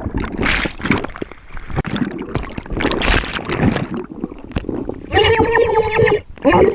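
Turbulent bubbling and splashing water from a plunge beneath the surface. About five seconds in, a loud pitched cry is held for about a second, then a shorter rising one comes near the end.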